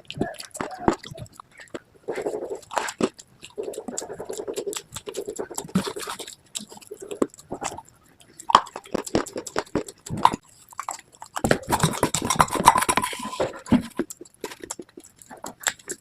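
Pieces of slate bitten and chewed close to the microphone: a run of sharp, brittle crunches and chewing, with a denser, louder spell of crunching about twelve seconds in.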